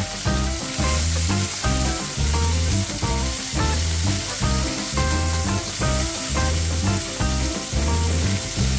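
Thick beef burger patties sizzling in hot oil in a frying pan, under background music with a steady bass beat that is the loudest sound.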